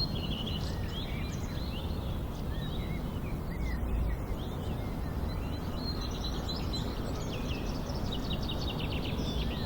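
Nature-soundscape birdsong: several birds chirping and calling over a steady low background rumble, with a quick run of rapid chirps near the end.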